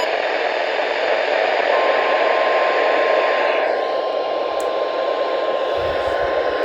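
NOAA Weather Radio broadcast heard through a receiver with a steady static hiss. About two seconds in, a single steady tone starts and holds: the 1050 Hz warning alarm tone sent during the weekly test.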